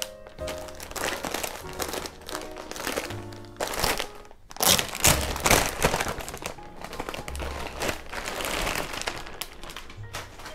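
Clear plastic packaging bag crinkling and rustling as a pair of trousers is pulled out of it, loudest about five seconds in, over background music.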